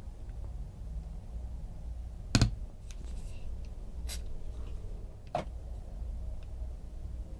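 A few sharp clicks and knocks from a small circuit board, its wires and hand tools being handled and set down on a workbench. The loudest click comes about two and a half seconds in, with a lighter one near the middle and a duller knock a little later, over a low steady hum.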